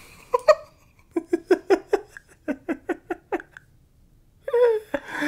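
A man laughing: a run of quick, rhythmic ha-ha pulses for about three seconds. A short vocal sound follows near the end.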